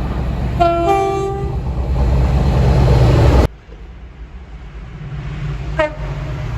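Train horn sounding one short blast of about a second, two notes in quick succession stepping up in pitch, over the steady low rumble of the moving train. The sound cuts off suddenly about halfway through, and a quieter train rumble builds again with a brief higher-pitched toot near the end.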